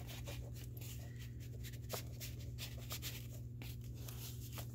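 Faint paper rustling and light scraping as hands slide and handle a paper tag in a pocket of a handmade journal, with a soft click about two seconds in. A steady low hum runs underneath.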